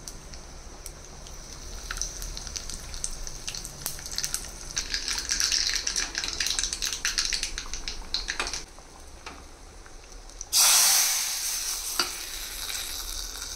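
Hot oil sizzling in a small iron tempering pan as mustard seeds and a dried red chilli fry, the seeds popping in a quick run of crackles. About ten seconds in, the tempering is poured into the pot of sambar with a sudden loud burst of sizzling that fades away.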